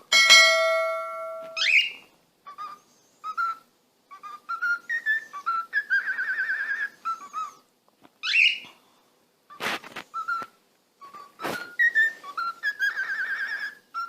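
A parrot whistling and chirping in a string of short notes, with warbling trills in the middle and near the end. A ringing tone opens and fades over about a second and a half, and two sharp clicks fall between the whistles near the end.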